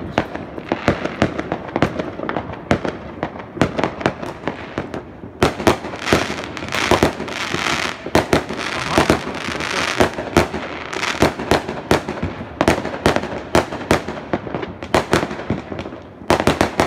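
New Year fireworks going off: many sharp bangs in quick, irregular succession, one after another without a break.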